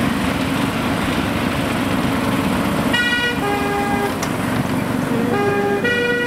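Miniature railway train running along the track with a steady low rumble. About halfway through, the locomotive sounds a two-tone horn, a high note dropping to a lower one, and sounds it again near the end.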